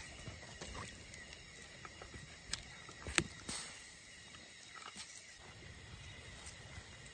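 Steady high-pitched drone of forest insects, with a few sharp clicks and knocks, the loudest about three seconds in.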